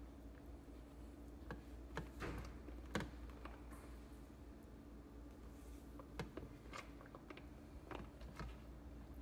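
Boiled saltfish being broken up by hand in a clear plastic container: faint, irregular clicks and taps of fingers and fish pieces against the plastic, the sharpest about three seconds in, over a low steady hum.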